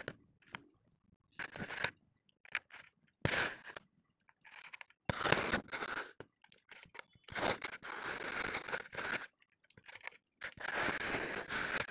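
Kinetic sand crunching as it is handled, in about five separate bursts of a second or two each with short quiet pauses between them.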